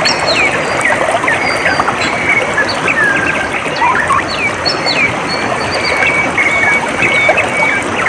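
Water trickling and babbling steadily, with many small birds chirping and whistling over it.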